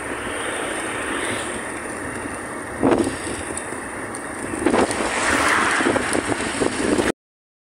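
Steady road and wind noise heard from a moving vehicle, with two short thumps about three and five seconds in. The sound cuts out abruptly near the end.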